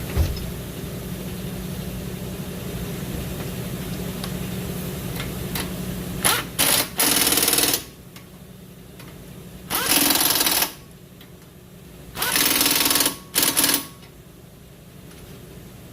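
Impact wrench running in three short bursts of rapid hammering, each a second or two long. A steady hum underneath stops about eight seconds in.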